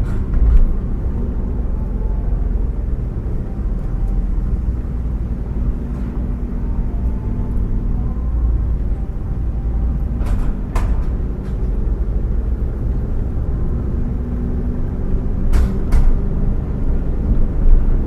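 Steady low rumble of a vehicle driving along a city road: engine and road noise. A few sharp knocks come about ten seconds in and again near the end.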